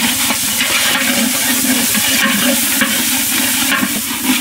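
Chopped onion and green chillies sizzling in hot oil in a pan while being stirred, with irregular scraping strokes of the stirring spoon.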